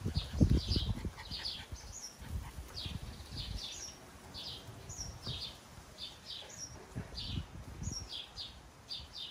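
Small birds chirping over and over, short high notes at about two a second. Low irregular thumps and rumble run underneath, the loudest about half a second in.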